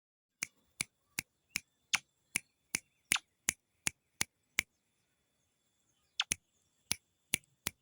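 Sharp, evenly spaced clicks, about two and a half a second, pausing for about a second and a half midway, over a faint, steady, high-pitched tone.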